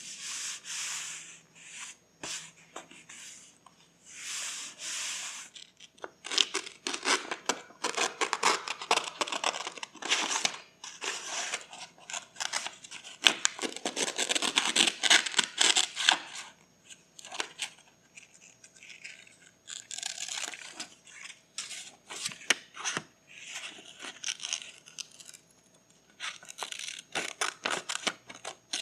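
Paper being torn and rustled by hand: two short smooth tearing strokes in the first few seconds, then a long spell of dense crackling, and scattered rustles later on.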